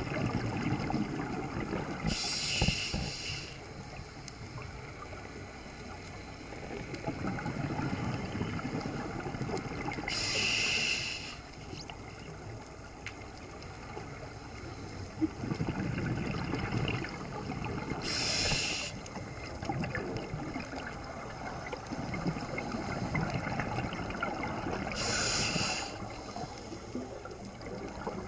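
Scuba regulator breathing heard underwater. There are four hissing inhalations about eight seconds apart, each about a second long, and a bubbling, gurgling rumble of exhaled air between them.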